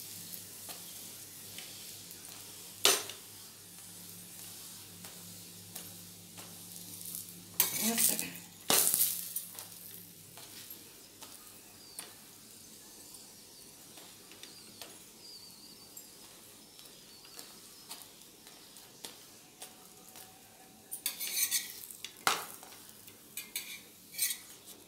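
A methi paratha frying in oil on a tawa (flat griddle), giving a light steady sizzle as it is roasted crisp. A metal spatula scrapes and presses on the griddle: once sharply about three seconds in, a few times around eight to nine seconds, and in a quick cluster near the end. A low steady hum stops about ten seconds in.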